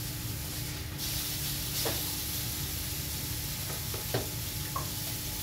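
Beef fillet and mushrooms sizzling in a frying pan as a red beer sauce reduces, with a couple of short knocks of metal tongs against the pan.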